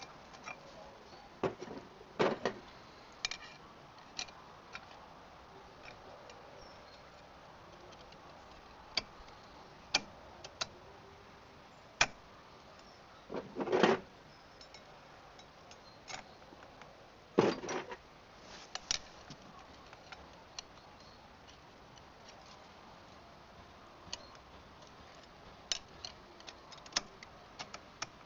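Scattered metal clicks and clinks of clutch plates and parts being handled and fitted back into a trials motorcycle's clutch, with a few louder clanks about two seconds in, near the middle and a little after.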